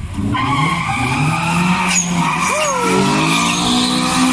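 Two drag cars launching hard off the line: engines revving up sharply about half a second in, a gear change about two seconds in, and tyres squealing under wheelspin.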